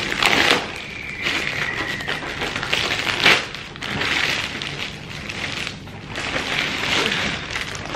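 Clear plastic bag crinkling and rustling in uneven bursts as a laptop box is worked out of it.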